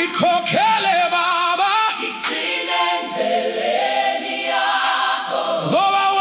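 Choir singing a Ndebele gospel song in harmony, mostly voices with little instrumental backing, holding long notes that slide up into pitch.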